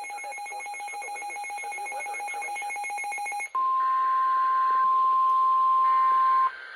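An electronic alarm tone, rapidly pulsing, for about three and a half seconds. It then switches to the steady 1050 Hz NOAA Weather Radio warning alarm tone, which holds for about three seconds and then stops.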